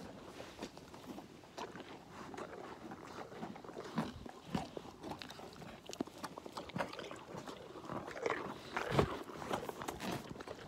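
Farm animals crunching and chewing carrot pieces taken from an outstretched hand: a run of crisp, irregular crunches, with heavier knocks and rustling near the end as the animals crowd in against the camera.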